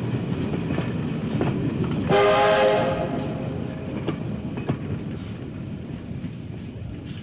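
Steam train's goods wagons rumbling past, wheels clicking over the rail joints, with one short multi-tone steam whistle blast about two seconds in; the rumble then slowly fades as the train draws away.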